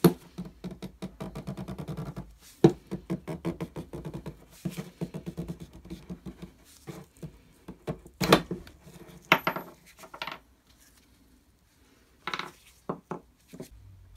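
ER Varney A956 Yankee-style ratchet screwdriver, rusty, clicking rapidly as its handle and shaft are twisted against each other by hand, with a few louder metal knocks in between. Near the end there are only a few scattered clicks.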